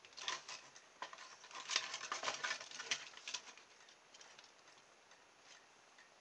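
Light plastic clicks and rustles as a toy RC car's plastic body shell is taken off its chassis and handled, busiest in the first three and a half seconds, then dying away.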